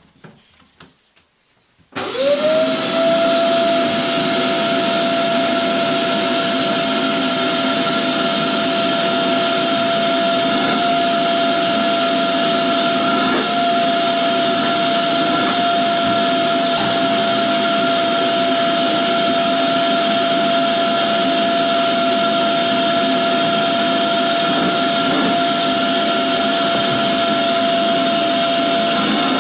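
Vacuum cleaner switched on about two seconds in, its motor quickly spinning up to a steady high whine and running on at a constant level while it sucks loose fur off a pet.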